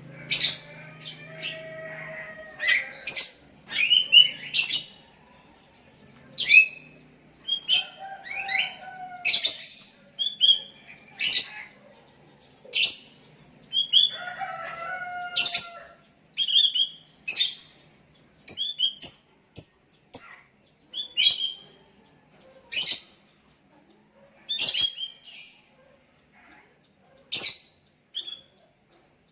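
Sooty-headed bulbuls calling back and forth, short sharp notes following each other about once a second, as one bird answers the calls of another. A few lower, longer gliding calls come in near the start, about a third of the way in and near the middle.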